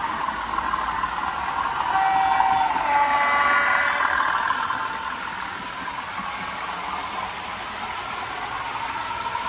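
Bachmann OO gauge Class 37 model locomotive running, its Zimo sound decoder playing a diesel engine sound through the model's small speaker. A horn with more than one note sounds about two seconds in and holds for roughly two seconds.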